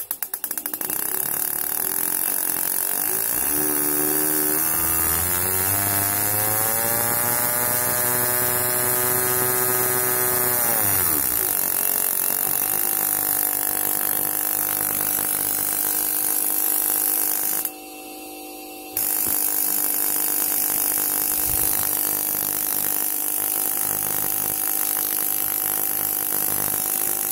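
CDI test rig running a repaired BRT CDI unit for an old Honda Vario: a loud electric hum with hiss. Its pitch climbs steadily for several seconds, drops sharply about 11 seconds in, then holds steady, with a brief dip near 18 seconds. The repaired CDI is working normally again.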